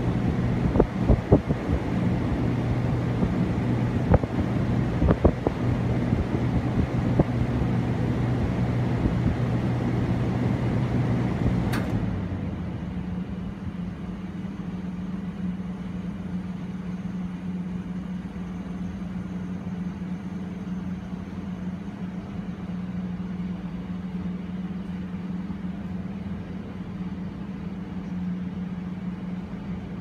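Saijo Denki air conditioner condenser running with a steady hum and rushing air, then about twelve seconds in it shuts off with a click: the lower hum cuts out and the noise drops away, leaving a quieter steady hum.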